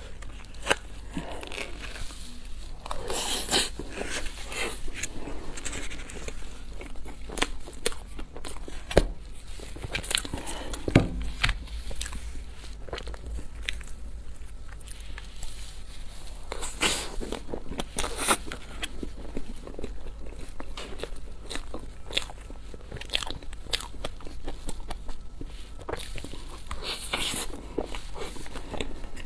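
A small utensil cutting and scraping through a soft cream-filled crepe roll in a foam tray, with many sharp clicks and squeaks against the tray and a loud knock about eleven seconds in; wet mouth sounds of eating the cake near the end.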